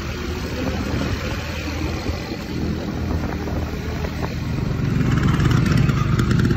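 Motor scooter engine running as it is ridden, getting louder about five seconds in.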